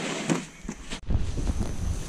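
Scuffing and a thud as a boulderer drops off the rock to the ground. After a cut about a second in, footsteps on a leaf-littered forest trail with wind rumbling on the microphone.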